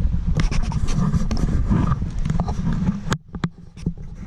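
Wind buffeting an action camera's microphone, with a quick run of knocks and taps from the camera being handled or carried over rock. The wind rumble dies away about three seconds in, leaving a few sharp clicks.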